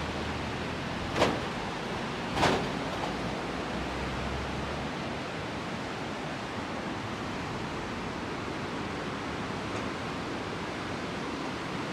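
Steady rushing of the Poonch River running high and muddy in flood after storm rains. Two brief louder noises come about one and two and a half seconds in.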